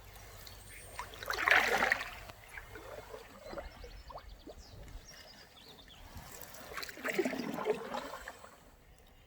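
Canoe paddle strokes in calm water: two swishing, trickling strokes about five seconds apart, the first slightly louder.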